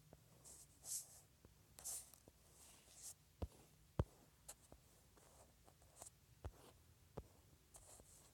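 Faint drawing strokes scratching across a surface, each a short hiss, with sharp taps scattered between them.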